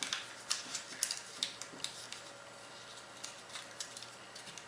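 Sheet of origami paper being handled and folded: soft crinkles with a few sharp paper clicks, most of them in the first two seconds.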